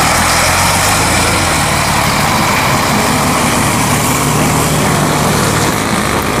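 Heavy diesel truck engine running loud and steady as a truck passes close by, a low drone with dense road and engine noise over it.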